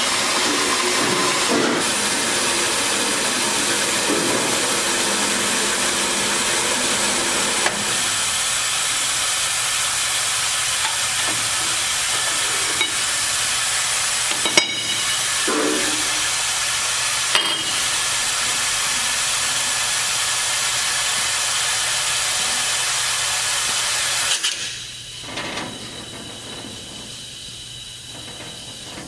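Roll-In TF1420 vertical bandsaw running with a steady hiss, broken by a few sharp metal clanks as the cut steel tube pieces are handled. Near the end the saw is shut off and the sound dies away, leaving a faint low hum.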